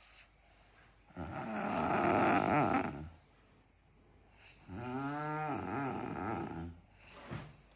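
A sleeping person snoring: two long snores about three and a half seconds apart, each lasting about two seconds. The second snore carries a pitched drone that dips and then rises.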